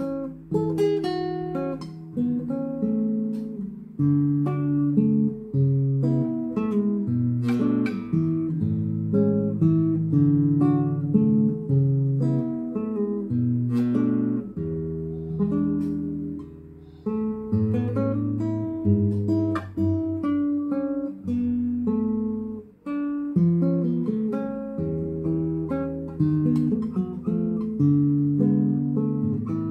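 Solo classical guitar playing a lullaby, plucked melody notes over a bass line.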